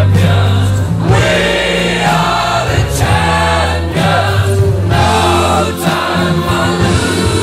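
Background music: a song with choir-like singing over sustained low bass notes.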